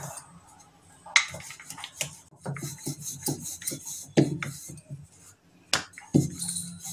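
Wooden rolling pin rolling out dough on a round marble board: rubbing and scraping with a few sharp, irregular knocks.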